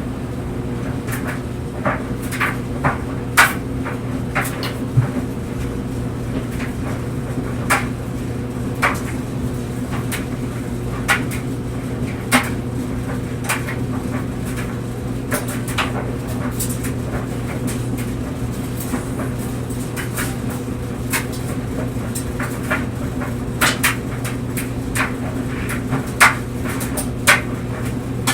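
Tumble dryer running with clothes tumbling in the drum: a steady motor hum with irregular knocks and clicks, likely buttons or zippers hitting the drum.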